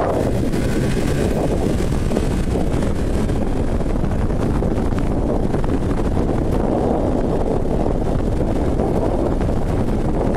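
Arctic Cat CrossCountry 9000 Turbo snowmobile riding along a trail, its turbocharged three-cylinder four-stroke engine running steadily, with wind noise on the microphone.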